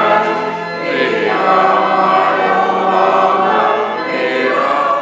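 Church choir singing, many voices holding sustained chords that change every second or so.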